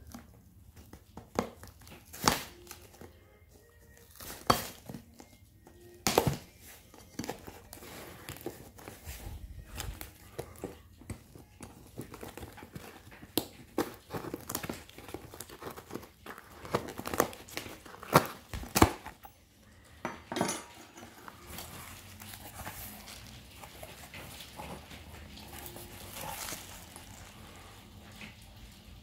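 A knife slitting and tearing packing tape on a cardboard box, with the cardboard flaps crinkling and scraping as they are pried open: an uneven run of sharp rips and knocks, the loudest a few in the first six seconds and two close together about eighteen seconds in.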